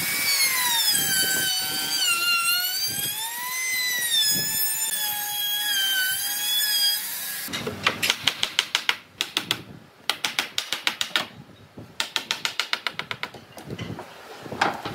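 Trim router cutting along the edge of a wooden frame, its motor whine wavering up and down in pitch as the bit takes the wood. About halfway through it gives way to quick runs of short scraping strokes of a hand tool worked against the wood.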